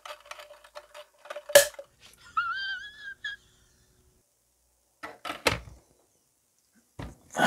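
Quick clicking of 3D-printed plastic gears and reel being wound by hand, then a single sharp snap as the monofilament fishing line pulling the syringe piston breaks under the load. A wavering, whistle-like tone follows, and there is one more short knock a little after halfway.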